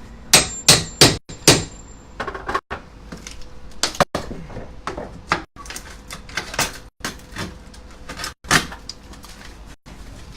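Hammer blows and knocks on an old window frame as it is worked loose: four sharp strikes in quick succession in the first second and a half, then scattered knocks and clatter.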